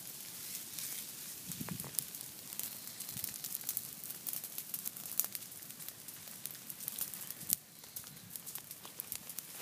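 Low prescribed fire crackling as it burns through understory brush and leaf litter, with many small sharp pops over a steady hiss.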